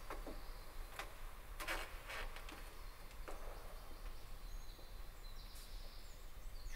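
Faint footsteps of a person walking across a stone church floor: a few soft, irregular steps and shuffles over a low steady hum.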